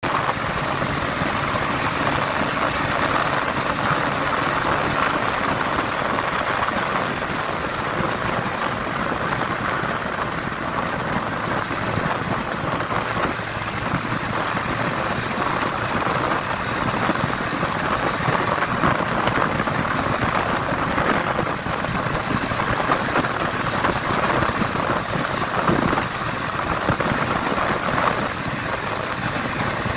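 Honda XRM125 Fi's single-cylinder four-stroke engine running steadily at cruising speed in fourth gear, under a steady rush of wind and road noise on the microphone.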